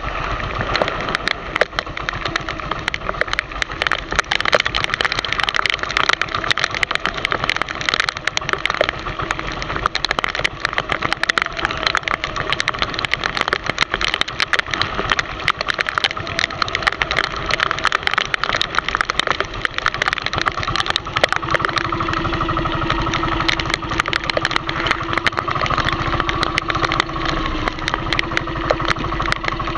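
Small fishing boat's engine running steadily, with many sharp clicks and ticks scattered through it.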